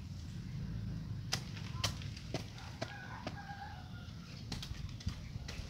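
A short-handled blade chopping into soil and weeds in irregular sharp strikes, about eight of them, over a steady low rumble. A faint bird call comes about halfway through.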